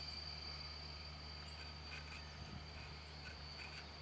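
Steady high-pitched drone of insects, with a faint steady low hum underneath and a few faint high chirps.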